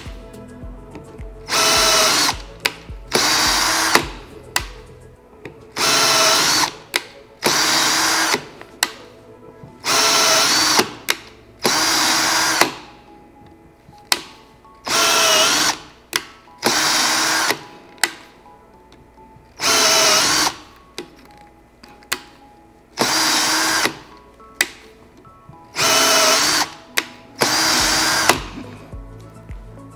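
Cordless drill on high speed power-tapping holes in aluminium with a 1/4-20 spiral flute tap. It runs in short bursts of about a second each, often two close together, with sharp clicks between them, repeated hole after hole.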